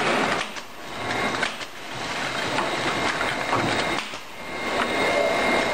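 Circular knitting machine running, its latch needles and cams clattering with dense rapid clicking that swells and eases every couple of seconds as the cylinder goes round.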